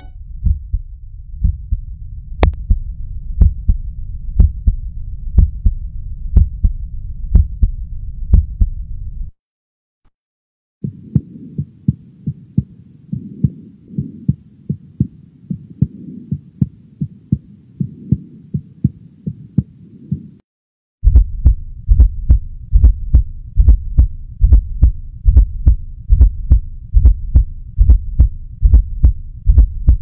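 Recorded heart sounds in three clips split by brief silences about 9 and 20 seconds in. First a normal lub-dub (S1 and S2, from the AV valves and then the semilunar valves closing). Then a gallop with a third heart sound after the dub (S3, "KEN-tucky"), a sign of rapid ventricular filling heard in heart failure in older patients. Last, a fourth heart sound just before the lub (S4, "teNNE-ssee"), a sign of forceful atrial contraction against a stiff, non-compliant ventricle.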